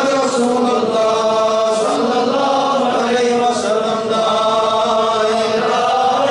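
Devotional chanting: voices singing in long, held melodic lines, loud and steady throughout.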